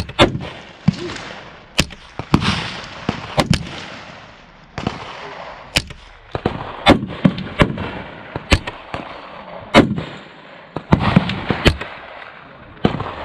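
Rifle shots on a busy outdoor firing line: about a dozen sharp cracks at uneven spacing, roughly one every second or so, some louder and closer than others, each with a short echoing tail.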